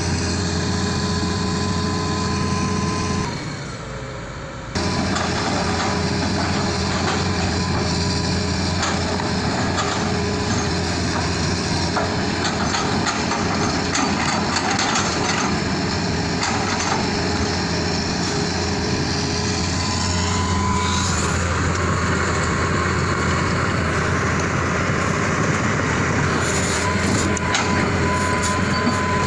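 Hitachi Zaxis 200 hydraulic excavator's diesel engine running steadily under working load as it handles logs with its grapple. The sound drops away for about a second and a half around four seconds in.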